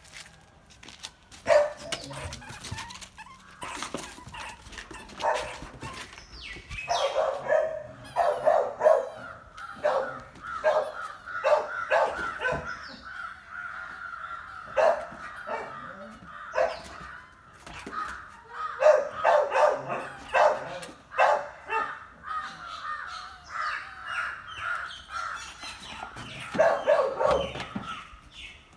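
Doberman Pinscher barking over and over in short clusters while it goes after a rat.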